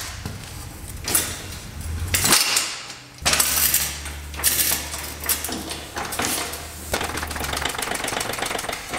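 Steel lawnmower lift being rolled across a concrete floor and positioned under a lawn tractor, its metal frame clanking and rattling several times over a low hum.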